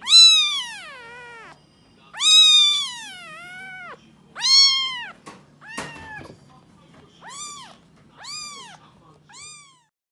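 Young calico kitten mewing repeatedly, six high-pitched mews. The first three are long and loud, with the pitch arching and falling. After a brief scratchy noise about six seconds in come three shorter, fainter mews.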